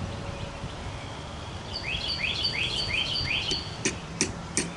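A songbird singing a quick run of about five repeated sliding notes, followed near the end by three sharp taps.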